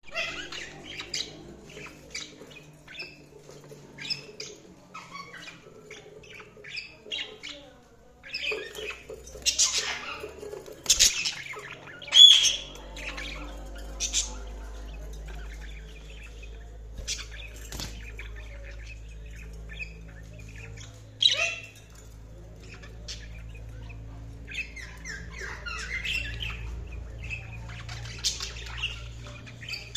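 Budgerigars chirping and chattering in quick, busy bursts, with louder, sharper squawks about ten to twelve seconds in and again a little past twenty seconds. A low steady hum runs underneath from about twelve seconds in.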